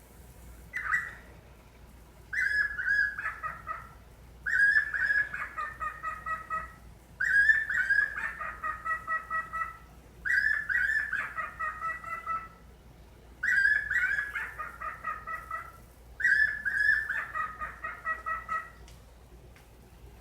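A bird calling in repeated phrases of rapid pulsing notes, about five pulses a second, switching between a higher and a lower tone. A short call comes first, then six longer phrases of two to three seconds each with short gaps between them. The machine-like pulsing sounds like an MRI or CT scanner.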